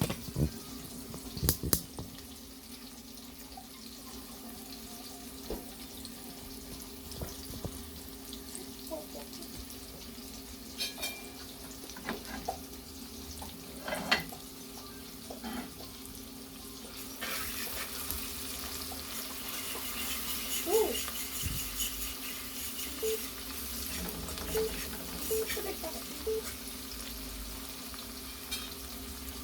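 A few sharp clinks over a low steady hum. Then, a little past halfway, a steady frying sizzle starts, with stirring clinks, as saltfish and seasoning fry in hot oil.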